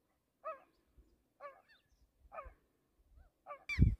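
Geese honking, single calls about once a second. Louder calls and a low rumble start near the end.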